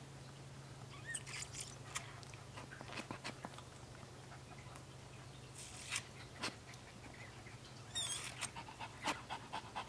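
A newborn Shih Tzu puppy has its nose suctioned with an infant nasal bulb syringe: faint scattered sniffs and clicks, and one brief high squeal about eight seconds in, over a steady low hum.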